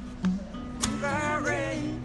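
Guitar being played: chords are struck over low sustained notes, and a melody line slides up and down in pitch about a second in.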